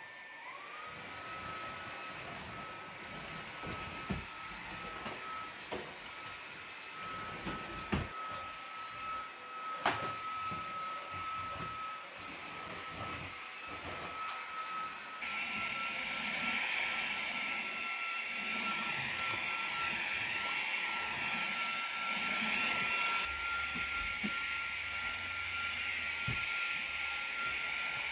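Devanti 250-watt cordless stick vacuum switched on, its motor spinning up to a steady high whine, with a few sharp knocks in the first ten seconds. About fifteen seconds in it steps up to a louder, hissier sound.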